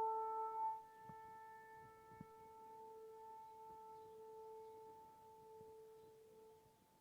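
Trumpet-like 'sky sound': a steady horn-like drone holding one low pitch. It drops sharply in level about half a second in, then fades away and dies out near the end.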